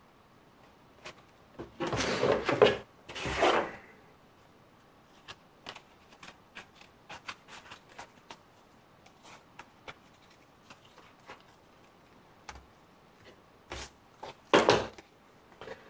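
Paper pattern pieces rustling as they are handled, followed by a run of small, quick scissor snips as a paper piece is cut out, with more paper rustling near the end.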